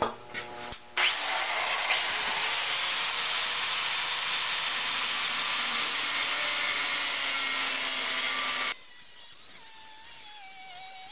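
DeWalt angle grinder grinding a 5160 steel knife blank clamped in a vise: a steady, dense hiss of the wheel on steel starting about a second in. Near the end it turns quieter, leaving a wavering whine.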